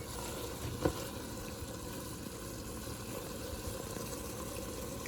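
Pasta simmering in its cooking liquid in a pan, a steady bubbling sizzle as the liquid cooks down and is absorbed. One brief, sharper sound about a second in.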